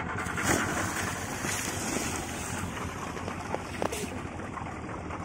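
Splash of a snorkeler rolling backward off the side of an inflatable rubber boat into the sea about half a second in, followed by more water splashing, over a steady rush of wind and water.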